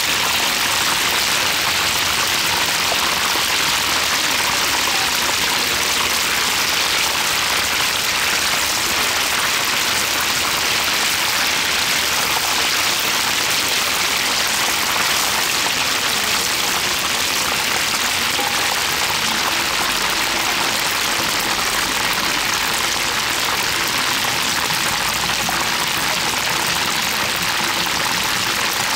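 Deep-frying oil sizzling steadily and vigorously around battered baby crabs in a large wok.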